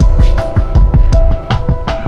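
Loud, fast, beat-driven soundtrack music: sharp percussion hits about four or five times a second over held tones and a deep bass.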